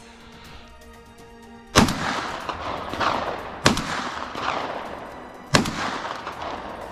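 Three shotgun shots about two seconds apart, each followed by a rolling echo that dies away over a second or so, over background music.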